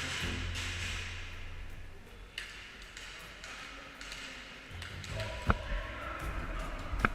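Airsoft pistol fire: three sharp cracks, each with a brief metallic ring, spaced two to three seconds apart, over a low rumble.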